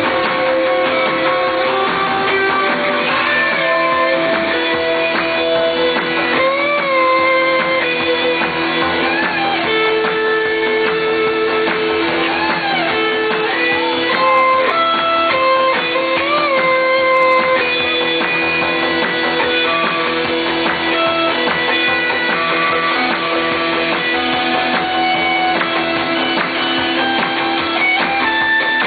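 Live rock band with an electric guitar playing a lead line of long, sustained notes, several of them bent and wavering, over a steady held chord. No singing.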